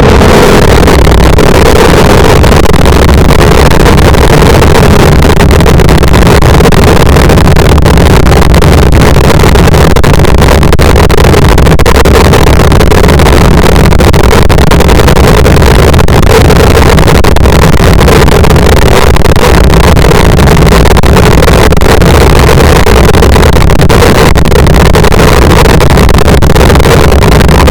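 "Triggered" meme sound effect: a dense wall of heavily distorted, clipped noise at maximum loudness, unchanging, heaviest in the deep bass.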